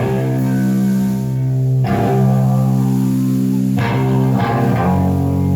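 Guitar playing slow, ringing chords, each let sustain with a new one struck about every two seconds.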